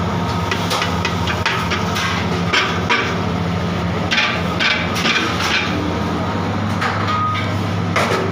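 A metal utensil knocking and scraping against an aluminium cooking pot, a dozen or so short clinks at irregular intervals, over a steady low hum.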